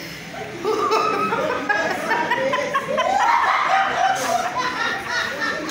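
A woman laughing, chuckling in bursts, picking up about a second in.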